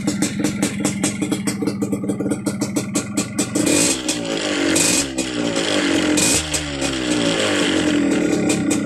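Yamaha DT125 two-stroke single-cylinder engine idling with an even popping beat, then revved several times from about three and a half seconds in, its pitch rising and falling, before settling back to idle near the end.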